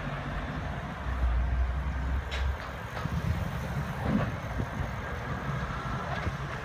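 Road vehicles passing: a motorhome drives close by, its engine and tyre rumble loudest about one to two and a half seconds in, over steady traffic noise from a truck and SUV pulling away.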